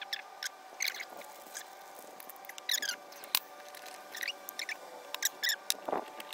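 Short, high squeaky chirps repeating at irregular intervals, with a few light clicks of small metal carburetor parts being picked up and handled.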